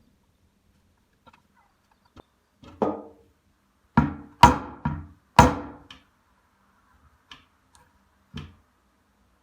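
A handful of sharp knocks on a work surface during leatherworking: a light tap, then three loud strikes in quick succession about four to five and a half seconds in, and one lighter knock near the end.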